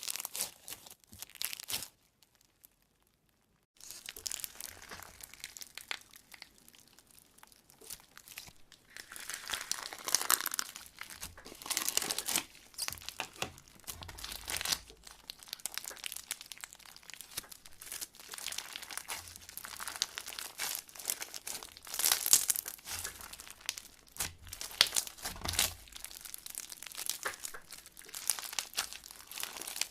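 Slime being squeezed and stretched by hand, making irregular crackling, popping and clicky squishing noises, with a brief total silence about two seconds in.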